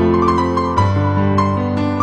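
Background music: piano or electric-piano notes over a sustained bass, with the bass note changing about a second in.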